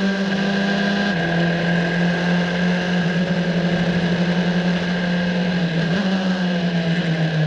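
Formula 4 single-seater's Abarth 1.4 turbo four-cylinder engine heard from the onboard camera, running hard at high revs as the car races. The engine note steps down twice in the first second or so and then climbs slowly, with a jump up in pitch about six seconds in.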